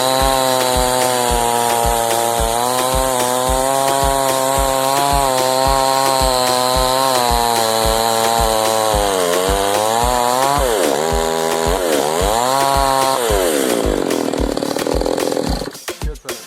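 Two-stroke chainsaw running at high revs, its pitch sagging and recovering several times as it loads in the cut, then dropping away. A steady drum beat runs underneath, and music takes over right at the end.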